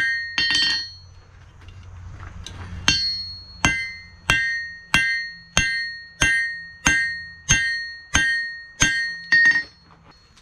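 Blacksmith's hand hammer striking steel held in tongs on an anvil, each blow ringing bright off the anvil. After one blow and a short pause, the hammering runs in a steady rhythm of about three blows every two seconds.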